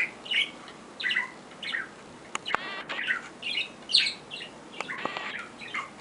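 Budgerigar chirping and chattering in quick, short calls, several bursts a second at times, with a few sharp clicks among them.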